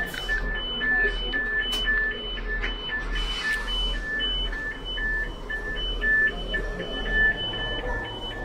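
Train passenger-door warning signal: electronic beeps alternating between a high and a low pitch, repeating steadily, over the steady low hum of the train.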